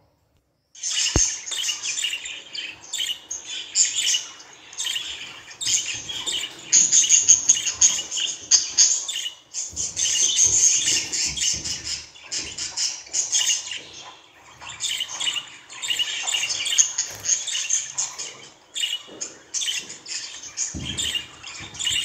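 Budgerigars chirping and warbling in rapid, continuous chatter, with a few short pauses. It starts after a moment of silence at the very beginning.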